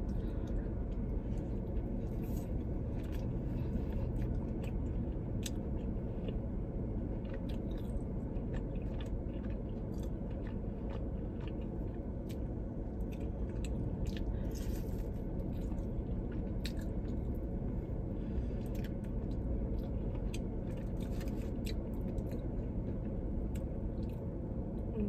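Close-miked chewing and biting of sauced bone-in chicken wings, with many short mouth clicks and smacks scattered throughout, over a steady low rumble.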